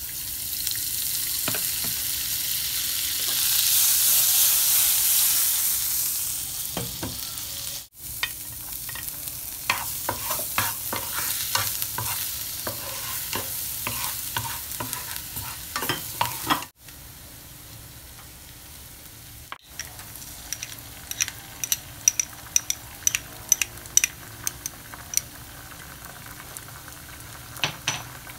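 Butter sizzling loudly as it melts into hot oil in a nonstick frying pan. It is followed by a wooden spatula scraping and stirring small bits frying in the pan, then a quieter steady sizzle with scattered sharp pops.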